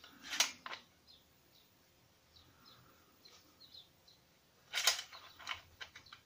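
Sharp clicks and clacks of a 3D-printed plastic prop pistol's slide and barrel being handled and fitted back onto the frame: two clicks about half a second in, then a louder clack near the end followed by a quick run of smaller clicks.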